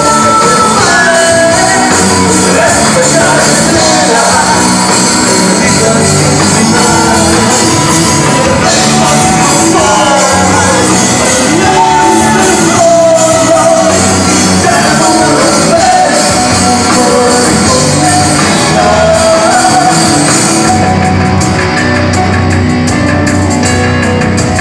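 Rock band playing live and loud: electric guitars, bass, drums and keyboard, with a sung melody line over the band.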